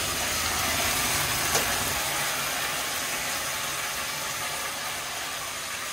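Thin slices of beef tongue sizzling in a frying pan on a gas flame that the cook wonders may be too high: a steady hiss that eases slightly toward the end.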